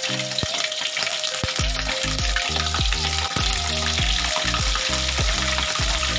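Pressure-cooked salem fish pieces frying in hot oil in a wok, a steady dense sizzle. Background music with a bouncing bass line plays underneath.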